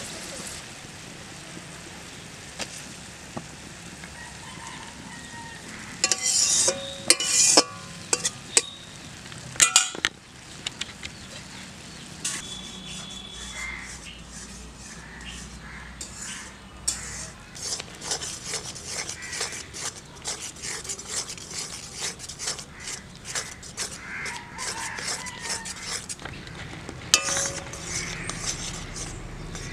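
Jute leaves simmering in a metal wok with a steady bubbling hiss. Metal pots and utensils clatter and ring loudly a few seconds in, a long run of quick light clinks and knocks follows, and a metal spatula knocks against the wok near the end as the greens are stirred.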